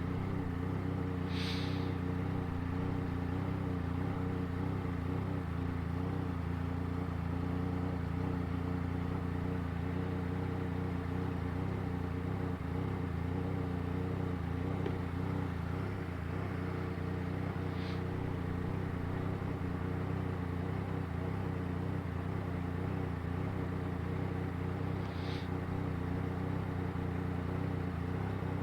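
Yamaha Tracer 900 GT's three-cylinder engine idling steadily through an aftermarket 3-into-1 exhaust, with no revving.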